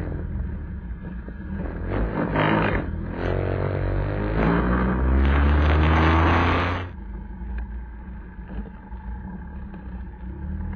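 Vespa scooter engine accelerating, its pitch climbing for several seconds, with wind noise on the microphone. About seven seconds in it drops abruptly to a quieter, steady engine sound.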